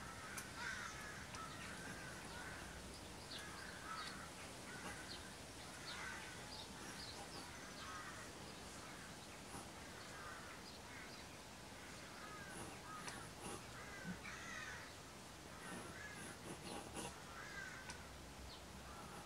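Faint crows cawing again and again in the background, with light scratches of a coloured pencil drawing on a board.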